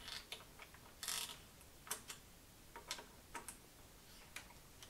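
Faint, irregular light clicks, about a dozen, from a T-handle torque tool being worked on a bicycle handlebar screw.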